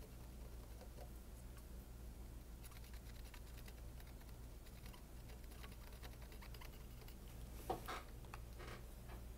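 Faint steady low electrical hum under scattered light clicks and scratches of tools being handled. A louder cluster of clicks and scraping comes about eight seconds in.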